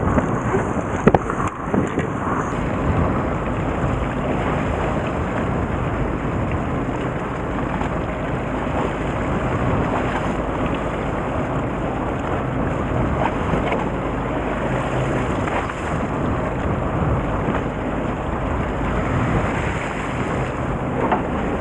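Fishing boat running on the water: a steady engine hum under a dense rush of water and wind buffeting the microphone. A few knocks in the first couple of seconds.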